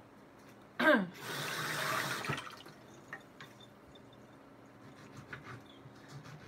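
Kitchen tap turned on with a short squeak that falls in pitch, water running into the sink for about a second and a half, then shut off.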